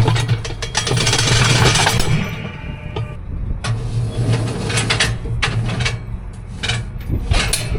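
Tractor engine running steadily, with a hiss over the first two seconds and scattered clicks and knocks later on.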